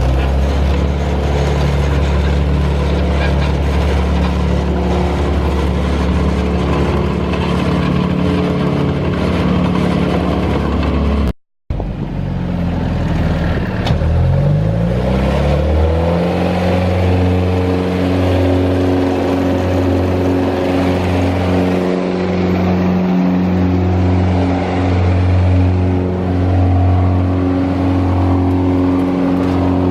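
The 48 hp four-cylinder Kubota diesel engine of a GreenMech Safe-Track 19-28 tracked wood chipper running steadily. The sound cuts out for a moment about eleven seconds in, then the engine speeds up over a few seconds and holds a steady, higher speed.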